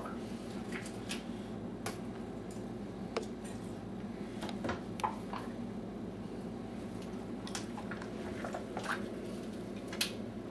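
Yogurt being scooped out of small pots into a blender: soft squishes and scattered light clicks and taps of a spoon against the pots, over a steady low hum.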